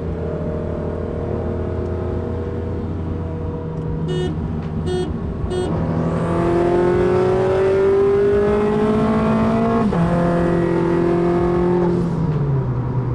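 Car engine heard from inside the cabin at highway speed, pulling hard in gear: its note climbs steadily from about six seconds in, drops suddenly near ten seconds as it shifts up, then falls away near the end as it eases off. Three brief sharp chirps come a little before the pull.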